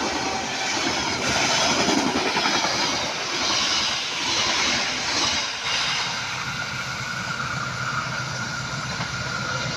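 KA Harina passenger train passing close by, its carriages rumbling and clattering over the rails. It is loudest in the first half and eases off to a quieter, steady rumble about six seconds in.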